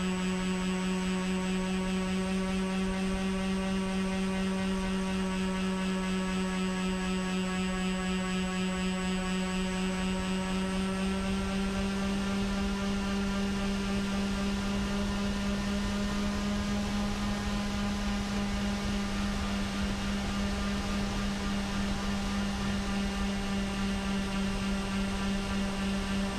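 Twin electric motors and propellers of a Skywalker RC plane running steadily in flight: a constant drone with a thin high whine over it, the pitch edging up slightly about halfway.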